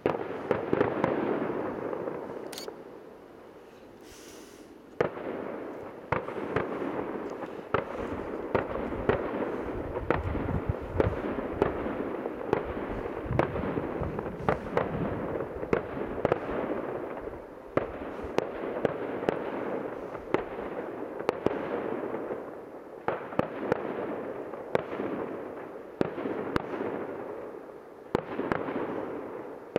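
Aerial fireworks shells bursting in a rapid, continuous series of bangs and sharp pops, each echoing. A short lull comes about three seconds in, then the barrage picks up again and keeps going.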